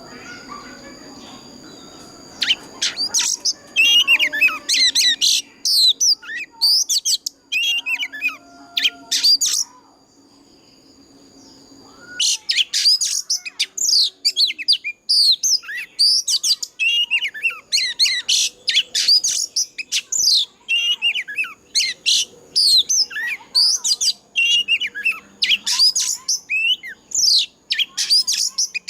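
Oriental magpie-robin singing loudly, a fast run of varied whistles, sweeps and chattering notes, with a short pause about a third of the way through before the song picks up again and runs almost without a break.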